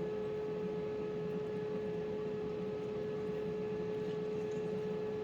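Air fryer running: its fan gives a steady hum with one clear, even tone over a soft whoosh of air.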